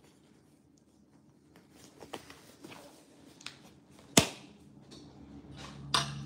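Black disposable gloves being pulled on: soft rubbery rustling and stretching, with one sharp snap about four seconds in as a cuff springs back against the wrist, and a louder knock near the end.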